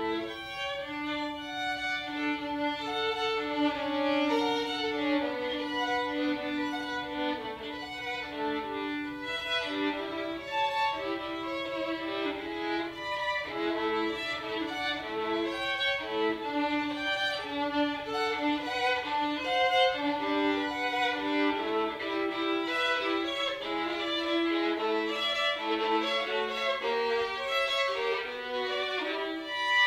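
Solo violin playing a chaconne, bowed without accompaniment, with a low note held for long stretches beneath moving upper notes.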